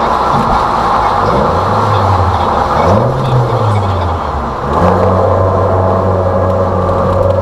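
Toyota Alphard minivan's engine and exhaust heard from the cabin while driving, the note rising and falling twice, then holding steady about two-thirds of the way in, with the exhaust echoing off the walls of a road tunnel.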